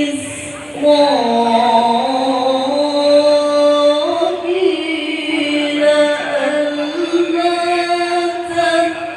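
A single voice chanting Quran recitation in slow, drawn-out melodic phrases. Long notes are held and step up and down in pitch, with a short pause for breath just under a second in.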